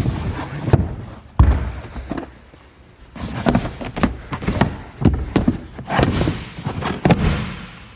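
A series of thumps and knocks with rustling between them, the loudest about a second and a half in.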